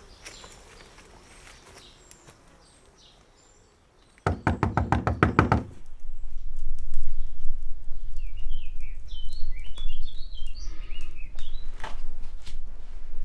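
Birds chirping in woodland. About four seconds in there is a brief burst of fast rattling, about eight strokes a second, and after it a steady low rumble under more bird calls.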